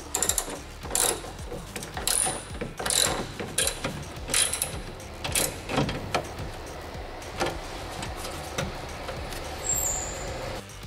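Irregular metallic clicks and knocks of hand tools and parts being fitted to a car's radiator and its hoses, several sharp clicks in the first six seconds and fewer after.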